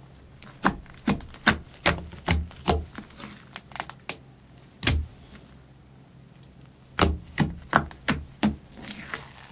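Thick black slime popping and clicking as fingers press and poke into it, the air pockets bursting with sharp pops about two or three a second. There is one run of pops early on and another near the end, with a brief crackle just before the end.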